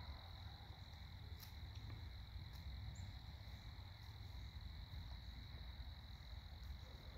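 Faint outdoor ambience: a steady high insect chorus, one unbroken trill, over a low rumble, with a few faint ticks.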